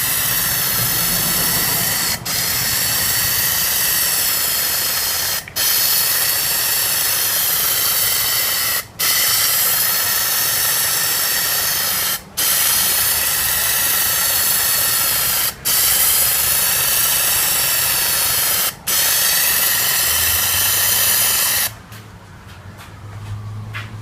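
Aerosol can of Plasti Dip spraying in steady hissing passes of about three seconds each, seven in a row with a brief break between each, the overlapping strokes of a coat being laid on. The spraying stops about three seconds before the end.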